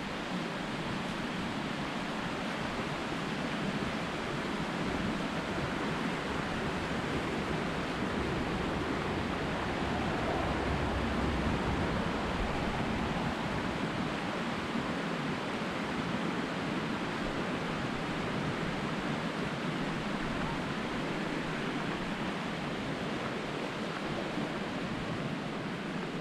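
Steady rushing of a mountain trout stream.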